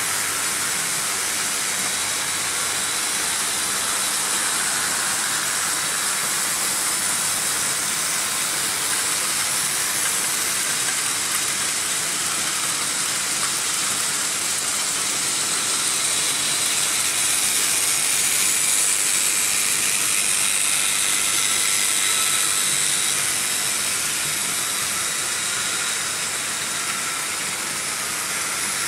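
Several Märklin H0 model trains running together on the stamped-metal M-track: a steady rushing hiss of metal wheels on the metal rails, with a faint steady whine from the locomotive motors. It grows a little louder about midway through.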